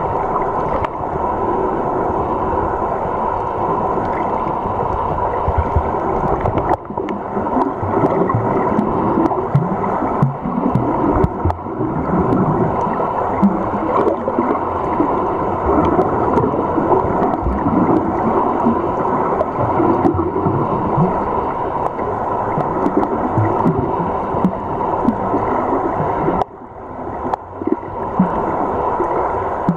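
Underwater noise heard through a submerged camera: a steady rush of water with irregular gurgles and soft knocks, dipping briefly near the end.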